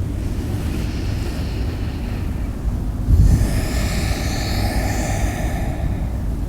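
Outdoor ambience: a steady low rumble of wind on the microphone and distant traffic. About three seconds in, a hissing sound with a wavering pitch swells up for about three seconds.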